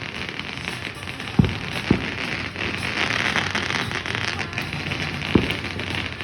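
Fireworks crackling steadily, with three sharp bangs: about a second and a half in, again half a second later, and once near the end.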